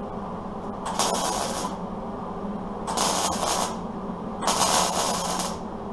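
MIG welder laying short tack welds on truck sheet metal: three crackling, hissing bursts of under a second each, about a second in, three seconds in and near the end, over a steady low hum.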